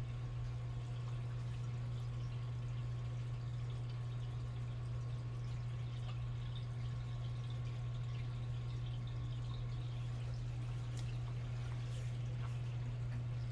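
A steady low hum, with faint scattered ticks and a couple of light clicks near the end.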